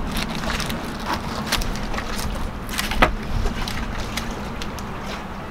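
A knife cutting through a crusty baked stuffed bread lying on baking paper, with the paper crackling and several short clicks, the loudest about three seconds in. A steady low rumble runs underneath.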